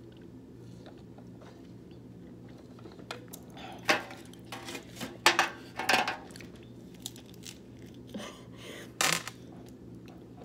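Close-miked eating-show handling noises: a run of sharp clicks, clinks and crinkles from utensils, food containers and packaging, bunched in two spells a few seconds apart, over a steady low hum.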